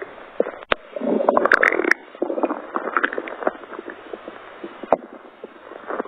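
Human stomach growling and gurgling, an irregular run of rumbles and squelches that is loudest about a second in, a stomach she wonders may have caught a chill.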